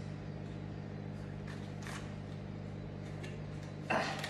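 Steady low hum, with faint rustles and, near the end, a short crinkle of a foil butter wrapper being handled.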